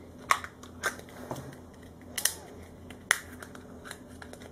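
Hard plastic Play-Doh playset pieces and a dough tub clicking and tapping as they are handled: several separate sharp clicks.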